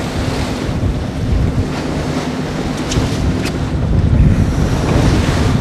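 Wind buffeting the microphone over the steady drone of the trolling boat's engine and water rushing past the hull. Two short clicks come a little before the middle.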